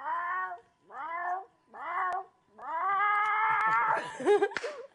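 A person imitating a cat yowling as it does when put in a bathtub: four drawn-out wails, each rising at the start, the last and longest past the middle.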